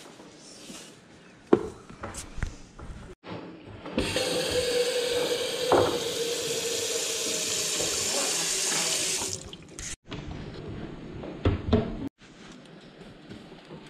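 Kitchen sink faucet running full into a nonstick cooking pot held beneath it, water splashing as the pot fills; the flow is steady for about five seconds, starting about four seconds in and stopping abruptly. A few light clicks and knocks of handling come before and after it.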